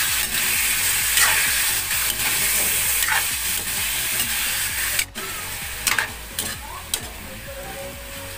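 Raw chicken pieces sizzling in hot oil in an aluminium wok while a metal spatula scrapes and knocks against the pan, turning them to sear with the garlic and onion. The sizzle drops sharply about five seconds in, with a few more spatula clicks after.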